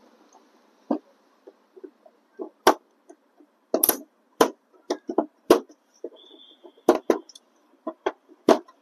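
Locking clips of an LED TV's panel frame being pried open with a thin screwdriver: about a dozen sharp clicks and snaps, irregularly spaced.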